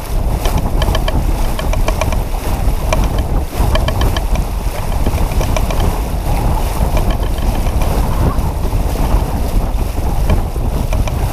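Wind buffeting the microphone and water rushing along the hull of a J-35 sailboat under sail, with a fast on-and-off rattle, about six ticks a second, running through it.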